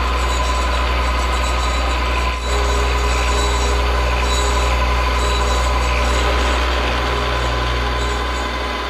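Milling machine spindle driving a 5/8-inch three-flute end mill through aluminum, roughing out a slot: a steady machining hum with cutting noise, briefly dipping a little over two seconds in and easing slightly near the end.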